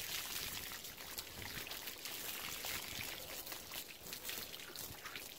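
Water from a garden hose running steadily over a wet beaver hide, splashing and dripping off it as the soap suds are rinsed out.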